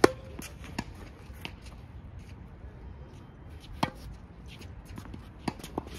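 Tennis ball struck hard by a racket in a sharp pop at the very start, and again a little under four seconds in. Fainter knocks of the ball bouncing and of the other player's strokes fall in between and near the end.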